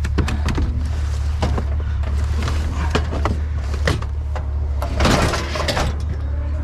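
Pickup truck engine idling steadily as a constant low hum, with frequent sharp knocks, clicks and a scraping rattle of scrap and junk being handled and rummaged through, loudest about five seconds in.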